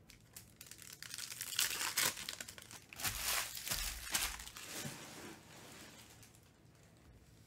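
Foil trading-card pack wrappers from 2020-21 Panini Recon Basketball crinkling, mixed with the rustle of cards being handled, in a run of crackly bursts that dies away after about five seconds.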